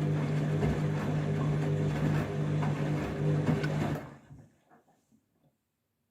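Candy washing machine running on its rinse, a steady motor hum with the tumbling wash of the drum, which stops about four seconds in.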